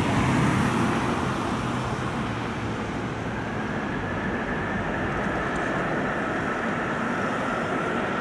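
Boeing 747SP's four jet engines during the landing roll-out: a steady rumble and roar, easing slightly, with a high whine that comes in about three seconds in and sinks a little in pitch.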